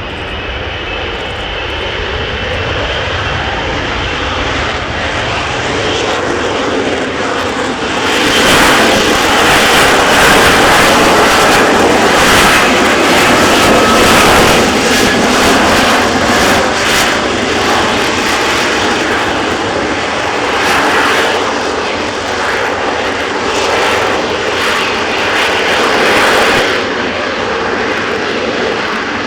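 Lockheed Martin F-35B's Pratt & Whitney F135 jet engine and lift fan running at high thrust in hover, a continuous crackling roar. It grows louder about eight seconds in and eases back near the end.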